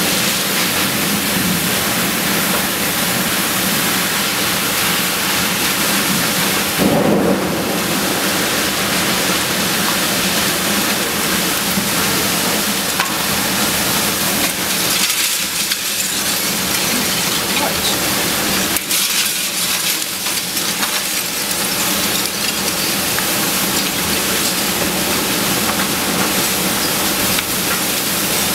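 Torrential wind-driven rain of a severe storm, a dense steady hiss. About seven seconds in there is a brief louder surge.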